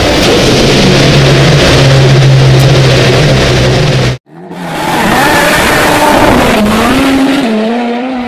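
Race car engine sound effect: a loud, steady high-revving drone that cuts off suddenly about four seconds in, then comes back with the engine note rising and falling as it revs.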